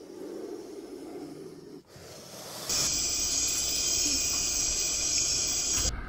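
Snake hissing: a faint start, then from about three seconds in a loud, steady hiss for about three seconds that cuts off abruptly.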